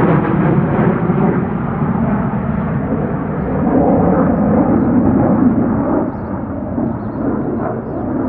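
Jet engine noise from an F-22 Raptor and an F-35A Lightning II flying together, a loud, steady rumble whose high end slowly fades as the pair draws away.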